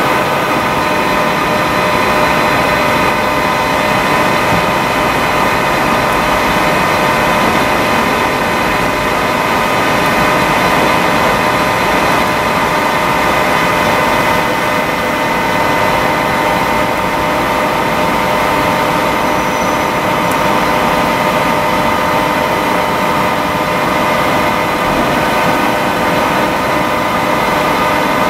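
Proturn 1745P CNC centre lathe running steadily: an even mechanical whirr with several steady whining tones, unchanging throughout.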